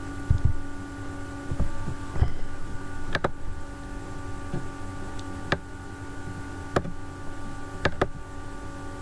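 Steady electrical hum with sharp computer mouse clicks every second or so, two close together near the end.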